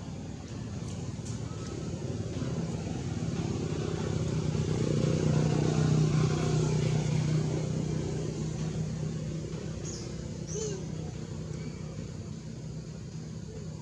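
A motor vehicle engine passing by, its hum growing louder to a peak about halfway through and then fading away.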